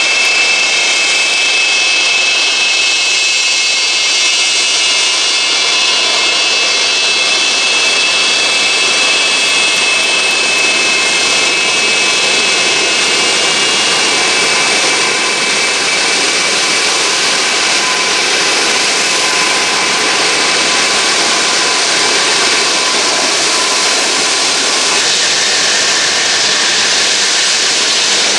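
Antonov An-225 Mriya's six turbofan engines running as the aircraft taxis past at close range: a loud, steady jet roar with a high whine that is strongest in the first several seconds and then gives way to a fuller roar.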